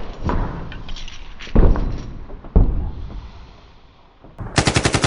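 A few heavy thumps, like a door banging, then near the end a burst of rapid automatic gunfire starts, about a dozen evenly spaced shots a second.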